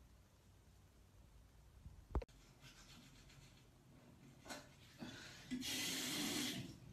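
A single low thump about two seconds in, then a toothbrush scrubbing teeth in short scratchy strokes, with a longer, louder stretch of brushing near the end.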